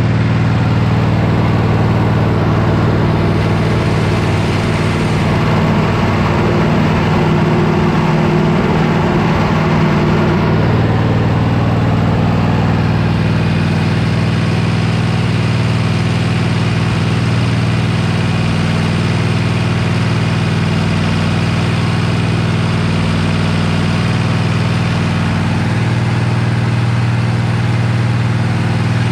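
Riding lawn mower's engine running steadily at a constant speed.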